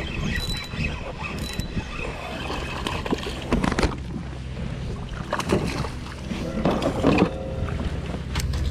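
A hooked bass being landed at a kayak: several sudden noisy bursts of commotion, the strongest about three and a half and seven seconds in, over a low steady rumble.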